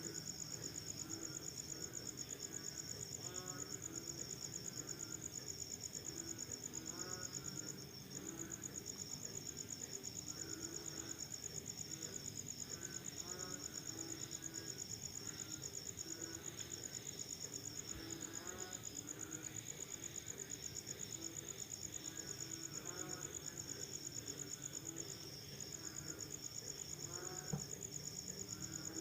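Crickets chirping in a steady, fast-pulsing high trill, with frogs calling over and over at a lower pitch underneath. The trill drops out briefly twice, and there is a single faint click near the end.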